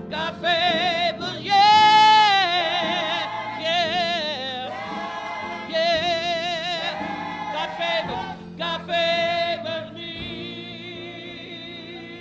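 Church gospel choir singing a slow song, with long held notes sung with a wide vibrato.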